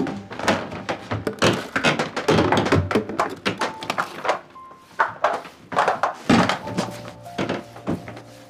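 A busy, irregular run of knocks and thuds, several a second, like household things being handled and set down during a hurried clean-up, over soft background music.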